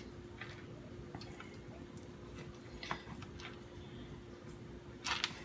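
Kitchen knife slicing slowly through raw pork shoulder on a plastic cutting board: faint wet, squishy cutting sounds, with a sharper click near the end.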